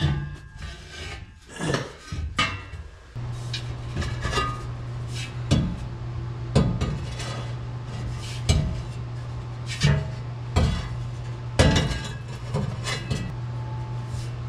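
Steel exhaust tailpipe section knocking and scraping against the truck's underside as it is worked into place, a sharp metallic knock about once a second, over a steady low hum that starts about three seconds in.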